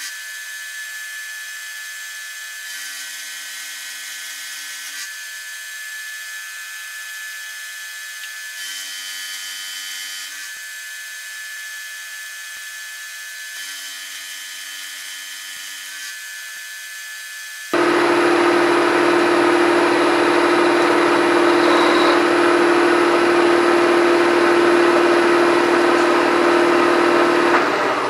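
Milling machine running an end mill through a metal block, a steady whine with a low tone that comes and goes every few seconds. About two-thirds of the way through, a much louder steady rushing noise with a strong hum starts suddenly and cuts off just before the end.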